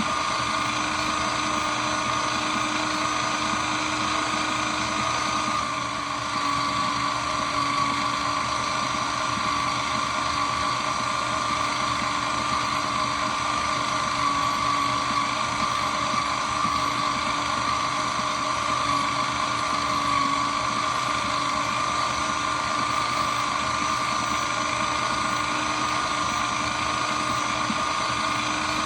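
Shredder machine running steadily, its motor giving a constant whine over a mechanical hum, with a brief slight dip in level about six seconds in.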